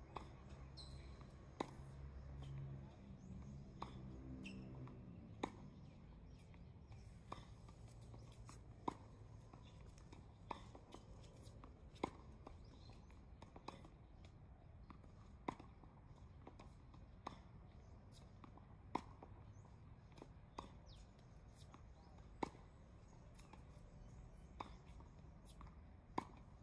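Tennis balls being struck by rackets in a rally, a sharp pop about every one and a half to two seconds, with fainter ticks between the hits.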